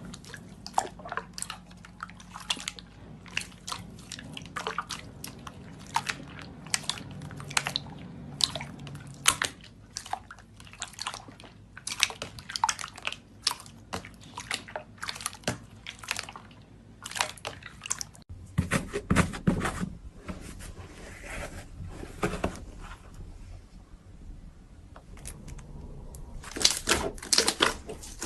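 Slime being squeezed and pressed by hand, giving a quick run of crackling clicks and wet crunches. The sound changes about eighteen seconds in, and the clicks come thick and fast near the end.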